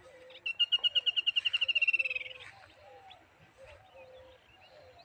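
A bird giving a loud, fast trill of about twenty rapid high notes lasting under two seconds, dropping a little in pitch at the end. Fainter low calls repeat underneath.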